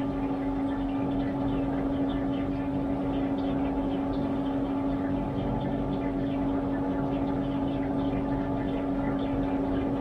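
Washtech UL undercounter commercial dishwasher running its wash cycle: a steady motor hum with one strong drone, under a faint irregular patter of water.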